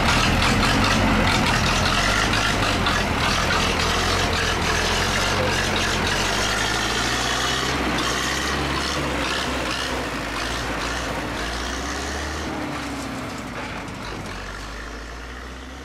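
Zetor tractor's diesel engine running as it works through mud, with crowd voices; the sound fades out gradually over the last several seconds.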